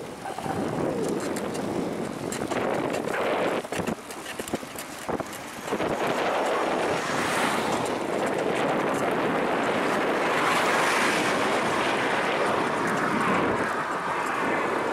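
Strong headwind buffeting the microphone on a moving bicycle: a loud, rushing roar that rises and falls in gusts, easing briefly around four seconds in and growing louder from about six seconds.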